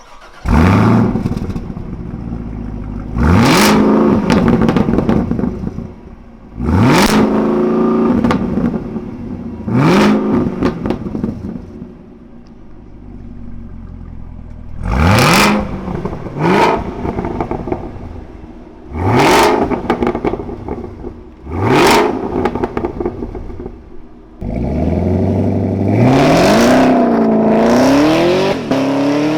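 Supercharged 6.2-litre V8 of a 2019 Chevrolet Camaro ZL1 being revved from idle. There are about seven sharp blips that rise fast and drop back, then a longer rev held and wavering near the end.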